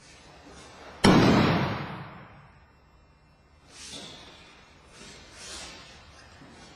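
A judoka thrown with a hip throw hits the mat about a second in: one loud slap-and-thud of the breakfall that rings on in the hall for about a second. Softer rustles of judo jackets and feet on the mat follow as the thrown man gets up.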